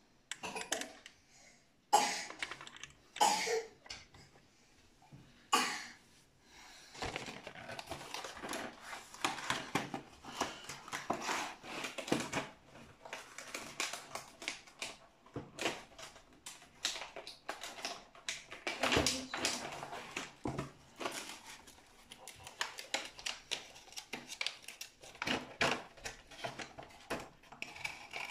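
Irregular clicking, tapping and rustling of small hard plastic parts being handled, with a few louder knocks in the first few seconds and steady busy clicking after that.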